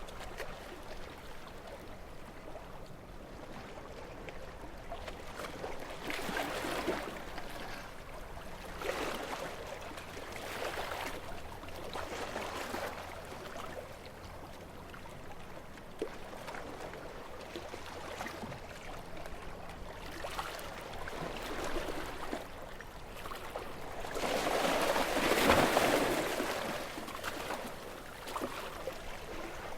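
Calm sea with small waves lapping and washing in one after another, each a soft rush that swells and fades, the biggest about twenty-five seconds in.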